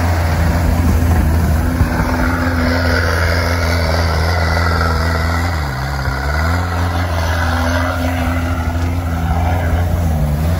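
Engine of a TRACKER all-terrain vehicle running steadily as it drives over snow; its pitch dips briefly about halfway through and then climbs back.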